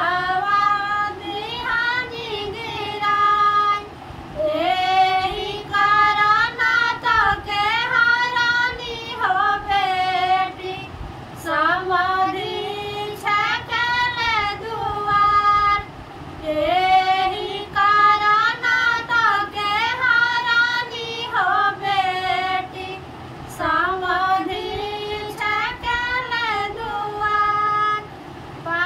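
Women singing a vivah geet, a North Indian wedding folk song, in long melodic phrases with short breaks between them.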